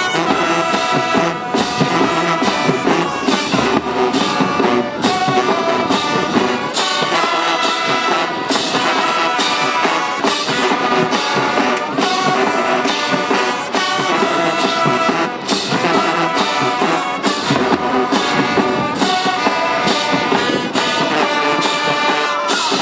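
High school marching band playing a loud brass tune with sousaphones and a steady drum beat.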